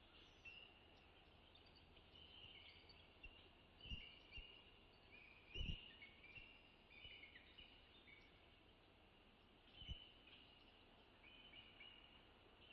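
Bald eagle calling: faint, high-pitched chittering chirps in short series, the alert calls of an eagle on guard against a possible intruder. Three low thumps break in, about four, six and ten seconds in.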